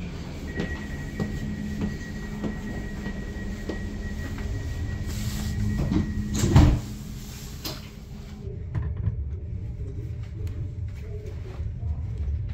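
Inside a Deutsche Bahn Intercity 2 double-deck carriage: footsteps over a steady electrical hum, with one loud knock a little past halfway. After that the hum stops and a duller rumble is left.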